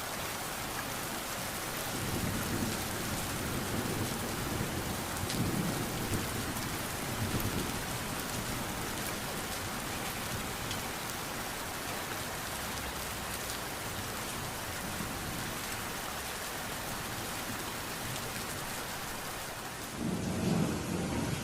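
Steady rain with low rumbles of thunder, rolling a couple of seconds in and again near the end.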